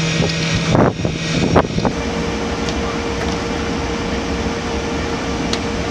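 Steady mechanical drone with a held hum. Between about one and two seconds in it shifts abruptly, then settles into a steady hum with a higher tone.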